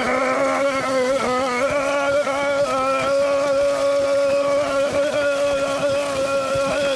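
Cartoon dog's voice making one long, unbroken vomiting sound, a throaty retch held at a steady pitch while the vomit streams out.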